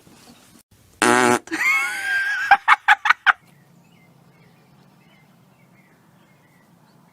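A fart about a second in: a loud, buzzy rasp lasting under half a second. A short wavering cry follows, then five quick sharp sounds, and after that only a faint low hum.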